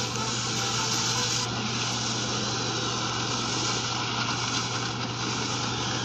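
Television sound effects of giant mecha vehicles driving over rocky ground: a steady, dense mechanical rumble with no breaks, heard through a tablet's speaker.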